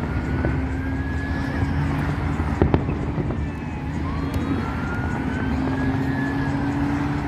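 A steady vehicle engine hum, with a siren wailing slowly up and back down twice, and one short sharp pop about two and a half seconds in.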